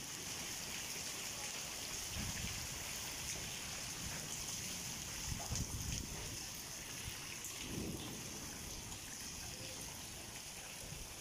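Heavy rain falling steadily onto a flooded concrete street, with water pouring from a spout and splashing into the floodwater.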